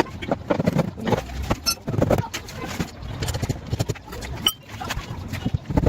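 A run of irregular light clicks and knocks over a low background rumble.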